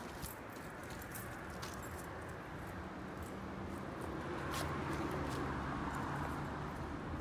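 Yanmar YC90-G 9 hp diesel tiller engine idling steadily, a little louder from about four seconds in, with a few light clicks.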